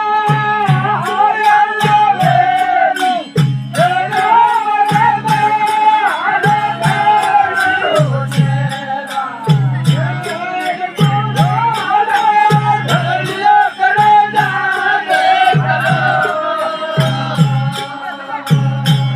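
Sindhi kafi folk music: a held, gliding melody over a steady drum beat, with a regular jingling, rattling percussion.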